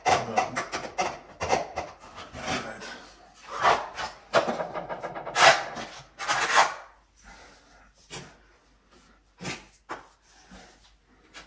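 A small trowel scraping and spreading tile adhesive for porcelain tile, in a series of rasping strokes. A few short, sharp taps follow near the end.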